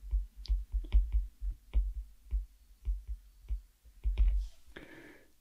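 A stylus tapping and scraping on a tablet while writing by hand: irregular clicks, roughly two or three a second, each with a dull low thump.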